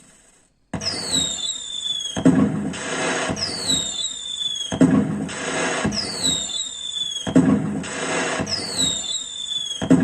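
Firework sound effect looping after a brief silence: a high whistle falling in pitch, then crackling bursts with a low boom, repeating about every two and a half seconds.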